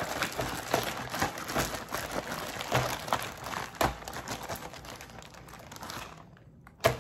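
Plastic zip-top bag crinkling as hands knead and press the marinating chicken wings inside, thinning out about six seconds in; a single sharp knock near the end.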